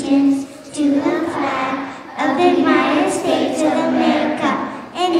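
A large group of children's voices in unison, in phrases about a second or two long with short breaks between them.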